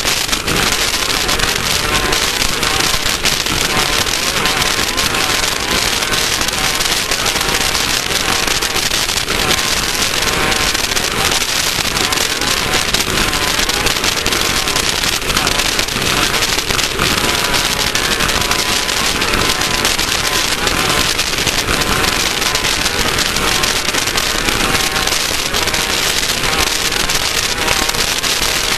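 A Class 1600 off-road race car with an air-cooled VW 1600 cc engine running at speed over rough desert course. Its engine noise is mixed with a dense, steady crackle and rattle of the chassis and of dirt and gravel hitting the car.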